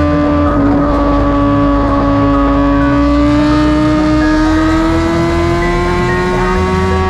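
BMW S1000RR's inline-four engine running hard at high revs at highway speed, its pitch slowly and steadily rising as the bike accelerates. Wind buffets the microphone underneath.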